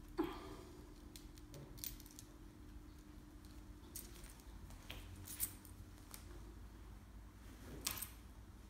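Faint scattered clicks and clinks of a metal leash clip knocking on a tiled floor as a squirrel monkey moves about on a towel, over a low steady hum. The sharpest tap comes just after the start, with a few more spread through the rest.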